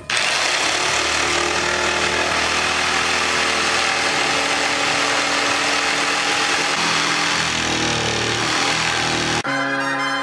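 Corded electric jigsaw running and cutting through a wooden board, a steady loud motor-and-blade noise. About nine seconds in it cuts off suddenly and music with brass instruments takes over.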